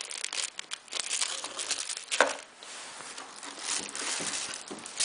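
Thin plastic zip bag crinkling and rustling in the hands, with the data cable inside shifting, and light taps against the cardboard box; one crackle a little after two seconds stands out.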